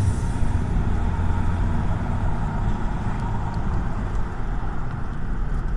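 2018 Toyota Prado SUV driving at speed, heard from inside the cabin: a steady deep rumble of engine and tyre noise.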